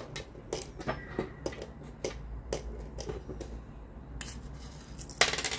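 Small charms clicking and clattering as they are handled and poured between a mini wok and a small wooden storage box. Irregular light clicks, with a louder run near the end.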